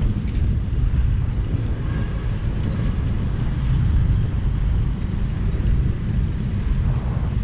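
Honda motorcycle riding along at road speed: the engine running under a steady low rumble of wind on the microphone.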